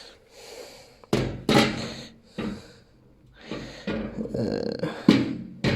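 A series of sharp knocks and clunks, each with a short resonant ring, as household items are handled and shifted into place.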